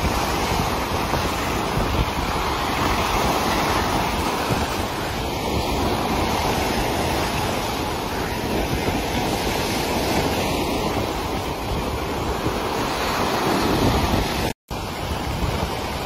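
Sea waves breaking and churning into white foam, a steady rushing wash, with wind on the microphone. The sound drops out for a split second near the end.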